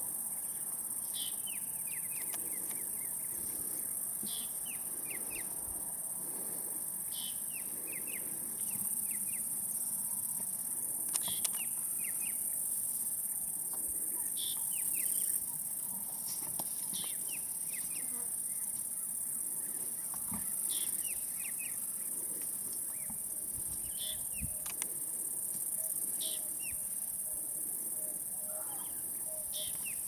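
Steady high-pitched drone of insects, with a bird repeating a short song, a sharp high note falling into a quick run of lower notes, about every three seconds.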